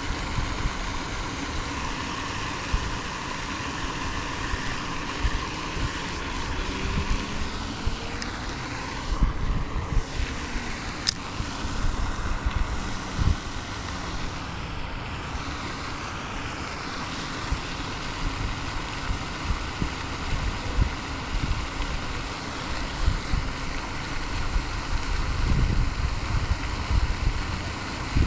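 Wind buffeting the microphone in irregular low gusts, over a steady rushing hiss.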